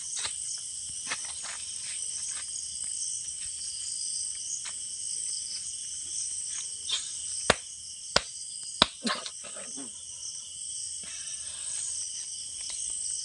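Steady high-pitched chorus of night insects such as crickets. Three sharp clicks come a little past halfway, each under a second apart.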